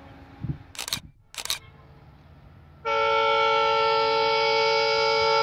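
Two short bursts of noise, then about three seconds in a train horn sounds one long, steady blast of about three seconds, several tones held together as a chord.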